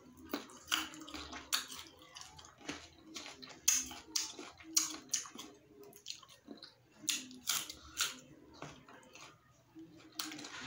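A person chewing crunchy mango slices, with irregular crunches several times a second.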